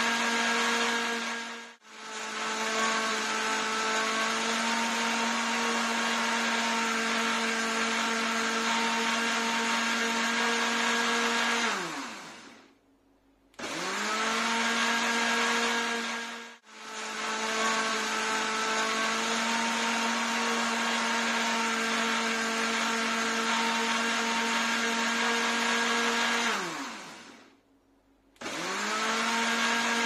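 Electric mixer grinder motor running at full speed, a steady whining hum over a rushing noise. It is switched on and off in a repeating pattern: a short burst, a split-second break, then about ten seconds of steady running that winds down with a falling pitch into a second of silence, twice over, starting up again near the end.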